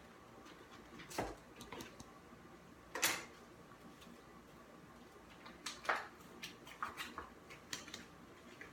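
Scattered light knocks and clicks of small objects and containers being handled on a tabletop, the loudest one about three seconds in, followed by a run of small ticks near the end.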